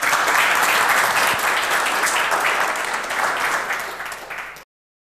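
Audience applauding, easing off a little before cutting off suddenly near the end.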